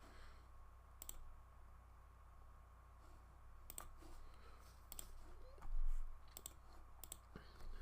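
A few scattered computer clicks, about eight in all, unevenly spaced, with one dull low thump a little past halfway.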